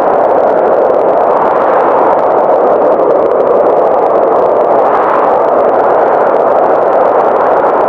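Loud, steady rushing noise of storm wind, even throughout with no change in pitch.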